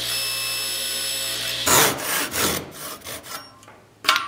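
Table saw running steadily as a pine 2x4 is fed over the blade, stopping abruptly about a second and a half in. Then a hand saw rasps through the 2x4 in about five strokes, cutting the notch for a rabbet.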